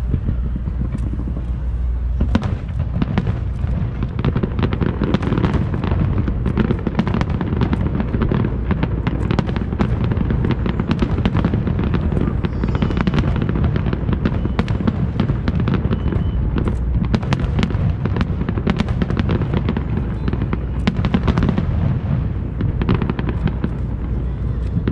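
Fireworks display: shells and ground effects bursting in a fast, dense run of cracks and bangs that starts about two seconds in and keeps going.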